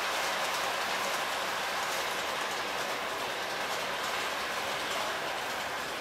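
H0-scale model freight train of tank wagons rolling over a model steel truss bridge: a steady rattle of the small wheels on the track.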